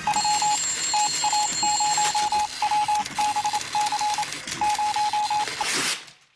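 A run of short electronic beeps at one steady pitch, in irregular groups of shorter and longer beeps, over a steady hiss. It fades out shortly before the end.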